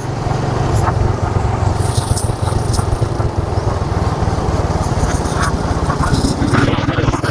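Motorcycle engine running steadily under way, with a continuous low pulsing drone and road noise.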